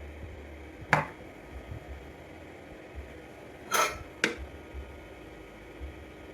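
Three sharp clicks or knocks over a steady low hum: one about a second in, then a slightly longer rasping one and a quick click close together near four seconds.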